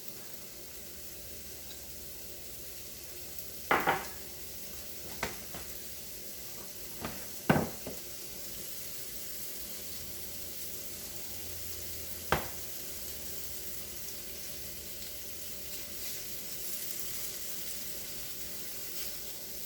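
Chicken sizzling in oil on a stovetop grilling pan, a steady hiss, with about five sharp knocks of kitchen utensils and pans, the loudest about seven and a half seconds in.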